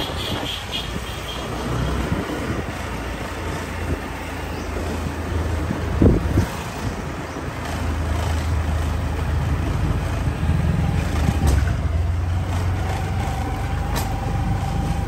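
Motorbike engine running as it rides along a street, with a continuous low rumble. A sharp thump comes about six seconds in, and a steady higher hum joins in the last few seconds.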